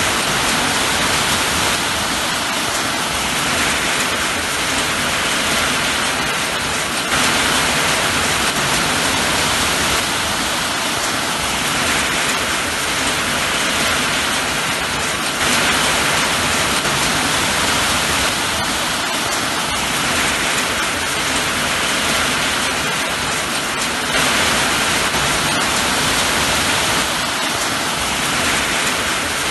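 Steady rain falling, a dense even hiss that swells slightly every several seconds.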